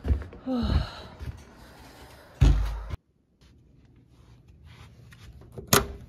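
A heavy thump about two and a half seconds in, then, after a sudden cut, quiet indoor room tone with one sharp click near the end, the handle or latch of a balcony door that is stuck shut by the snow.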